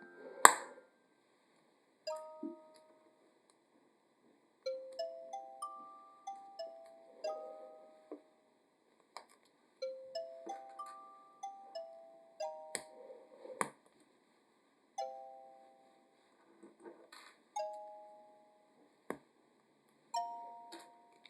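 Soft background music: a slow, gentle melody of chime-like notes that ring and fade. A few sharp clicks of small plastic building blocks being handled and snapped together come through, the loudest about half a second in.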